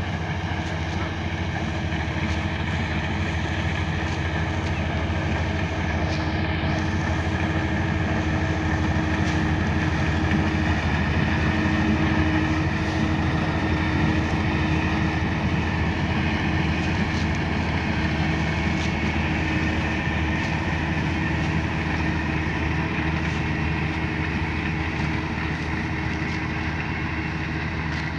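Kubota DC-35 combine harvester's diesel engine and machinery running steadily, growing a little louder toward the middle and easing off near the end.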